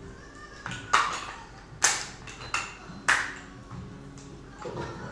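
Metal parts of a SIG 551 rifle being fitted back together: three loud, sharp metallic clacks with a short ring, about a second apart, and a few lighter clicks in between.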